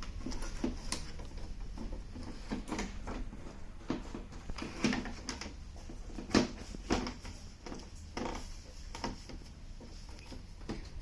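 Irregular light clicks and knocks from handling parts and tools during a TV repair, the loudest about six and a half seconds in, over a steady low hum.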